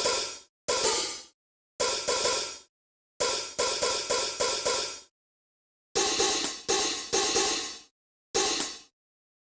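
A series of about fourteen loud, harsh crash-like bursts. Each starts sharply and fades within half a second, with dead silence between them. Some come singly and some in quick runs of three to five.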